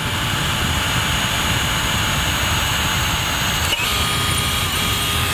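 Cordless drill running steadily at speed as a number 10 bit enlarges a pilot hole in a sheet-metal flange clamped in a vise, with a steady motor whine over the hiss of cutting. It stops abruptly at the end.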